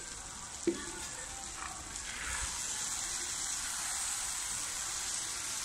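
Food sizzling in a frying pan: a steady hiss that swells about two seconds in and holds, with a light knock just under a second in.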